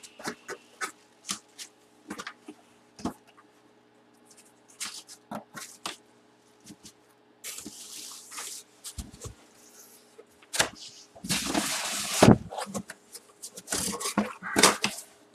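Cardboard box being handled and moved on a table: scattered knocks and clicks, with several longer scraping, rustling bursts, the loudest a little past the middle. A faint steady hum runs underneath.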